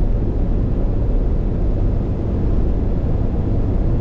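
Steady low rumble of a car driving at motorway speed: tyre and wind noise, even throughout.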